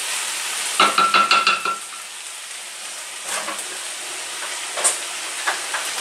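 Chicken and vegetables sizzling steadily in a frying pan, the water nearly cooked off, while a wooden spatula stirs and scrapes against the pan, with a quick run of scrapes with a ringing tone about a second in and a few lighter knocks later.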